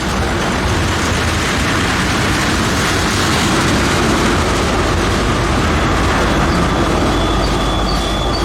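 Freight train of loaded tank cars rolling past at close range, a steady rumbling roar of wheels on rail. A thin, high, steady wheel squeal comes in near the end.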